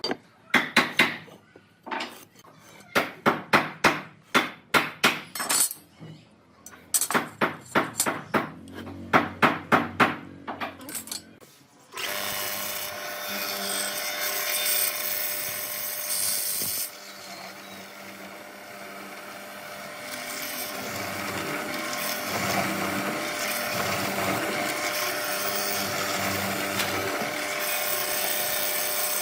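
Woodworking tool sounds: quick clusters of sharp strokes on wood for the first dozen seconds. Then a power tool starts suddenly and runs steadily with a constant hum, dropping in level around seventeen seconds in and slowly building again.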